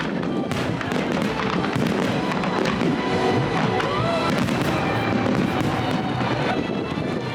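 Fireworks display bursting and crackling in a steady stream, with music playing alongside.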